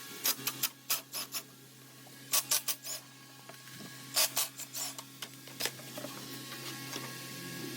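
Hand tools working on metal: short clusters of sharp clicks and scraping, several times over, above a steady low hum. This fits loosening the fittings while removing the AC compressor.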